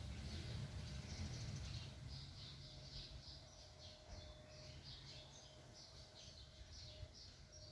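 Small birds chirping: a quick series of short, high chirps, several a second, over a low rumble that fades after the first two seconds.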